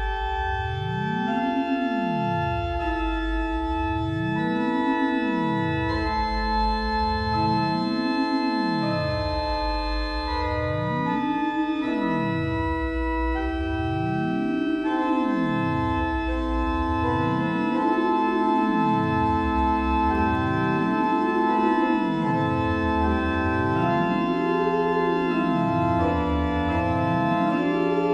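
Organ holding slow, changing chords over a low tone that sweeps up and down about every three seconds, its peaks climbing higher as it goes on.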